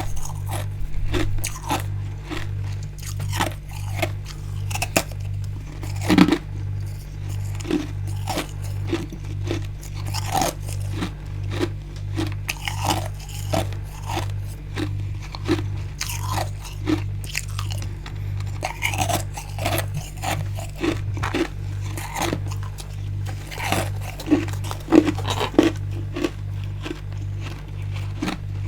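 Close-up crunching and chewing of built-up freezer frost and ice: a run of irregular crisp bites and chews with no pause, over a faint, steady, pulsing low hum.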